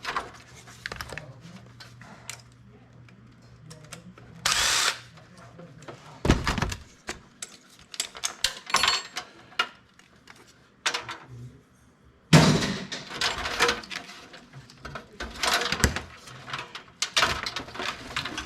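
Desktop computer being taken apart: a string of irregular metal clicks, clanks and knocks from the case and its parts, with a short burst of steady noise about four and a half seconds in and a louder flurry of knocking from about two-thirds of the way through.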